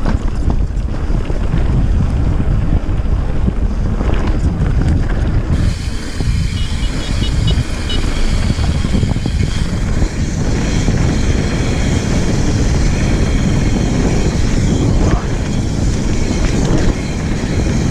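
Santa Cruz Megatower full-suspension mountain bike rolling fast down a dirt trail: steady rumble of the tyres over the rough ground, with wind buffeting the handlebar-mounted GoPro Session 5 microphone.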